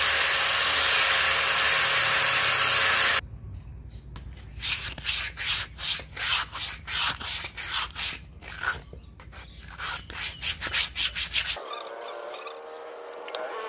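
An angle grinder fitted with a sanding disc runs steadily against rosewood for about three seconds, then stops abruptly. Rasping strokes follow, about two a second, as sandpaper is rubbed by hand over the wooden gourd. A faint wavering tone comes near the end.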